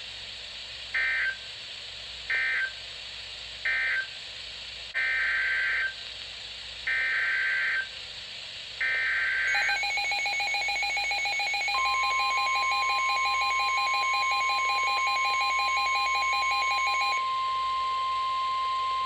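Emergency Alert System tones. First come three short bursts of screechy digital data, the end-of-message code closing one alert. Then come three longer data bursts, the header of the next alert, and about ten seconds in a rapidly pulsing two-tone attention signal, joined a couple of seconds later by a steady single-pitch alert tone that carries on after the pulsing stops.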